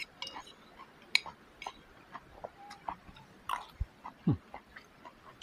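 Soft scattered clicks and smacks of someone eating with their hands, over faint background calls of birds, including brief chirps and one falling call about four seconds in.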